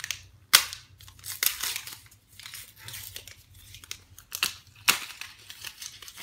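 Gift wrapping paper being crinkled and torn by hand in a run of short, sharp rustles and rips, the loudest about half a second in and again just before the five-second mark.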